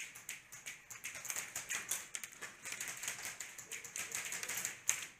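Airsoft guns firing, heard as a dense, irregular run of sharp clicks and taps, with one sharper crack just before the end.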